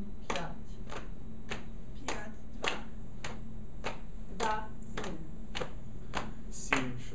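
A group of people keeping a steady beat with hand claps and slaps, one sharp hit about every 0.6 seconds.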